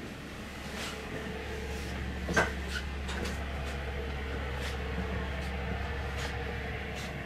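Steady low hum inside a Rhaetian Railway Allegra electric railcar, with scattered knocks, clicks and creaks from walking through the gangway between cars; the loudest knock comes about two and a half seconds in.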